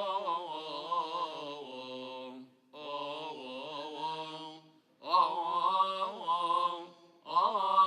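A solo male voice chanting Coptic liturgical chant, a slow, ornamented melody with long held and wavering notes. It comes in phrases of about two seconds separated by short breaths.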